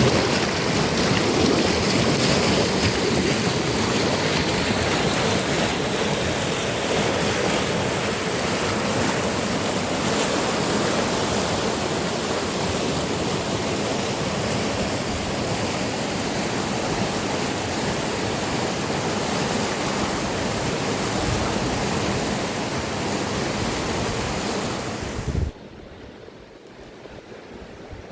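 Fast mountain river rushing, a loud, steady noise of turbulent water. About 25 seconds in it cuts off abruptly after a short thump, leaving a much quieter rush of water.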